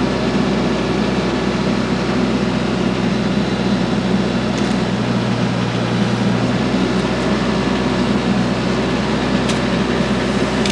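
TYM tractor's diesel engine running steadily, an even hum with no change in speed, while it drives the hydraulics of a tree-shear attachment trimming a small tree.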